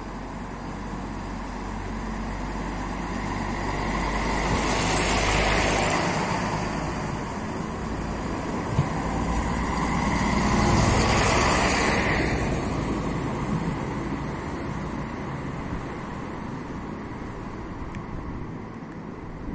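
Siemens Desiro class 642 diesel multiple unit pulling away from the platform and passing close by: low diesel engine running, swelling to two loud peaks about five and eleven seconds in, then fading as it draws off. A single sharp click sounds between the two peaks.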